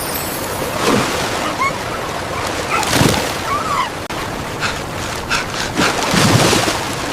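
Steady rushing water, with a few heavier surges about one, three and six seconds in.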